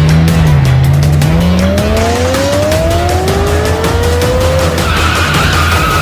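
Race-car engine revving up in one long, steadily rising pitch, then tyres squealing in a skid near the end, over background music.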